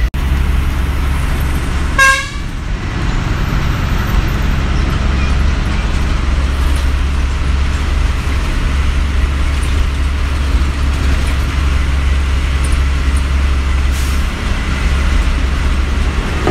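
Bus engine running steadily, heard from inside the cabin, with a short horn toot about two seconds in.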